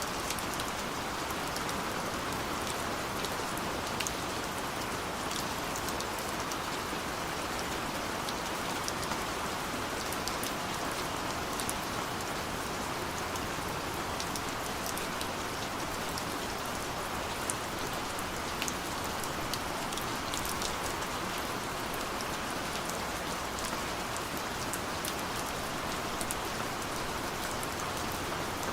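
Steady rain falling, with a dense patter of individual drop ticks over an even hiss.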